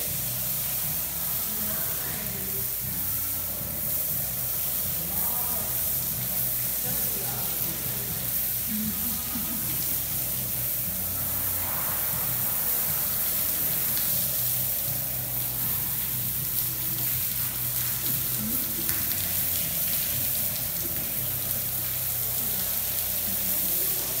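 Water from a handheld hose spray nozzle hissing steadily as it sprays onto an elephant's wet hide, over a steady low hum.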